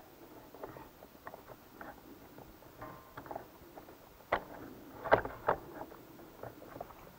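Light clicks and knocks of a metal drive-unit bracket and pulley being fitted by hand onto an RS800 CVT transaxle, with three sharper knocks about four to five and a half seconds in.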